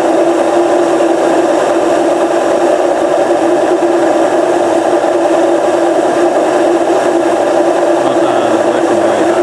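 Indesit WR830 washing machine running with its covers off. Its universal motor drives the drum at a constant speed, giving a loud, steady whine over a mechanical rumble.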